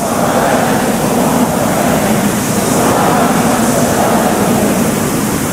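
A congregation reading a Bible verse aloud together, many voices merging into a steady, dense murmur with no single voice standing out.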